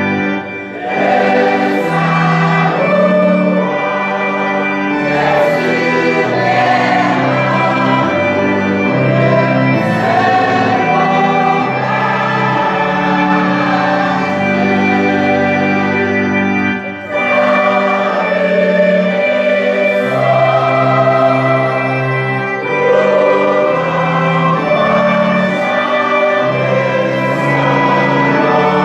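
Church choir singing with keyboard accompaniment holding chords under the voices. The sound drops briefly twice, about a second in and just past halfway, between phrases.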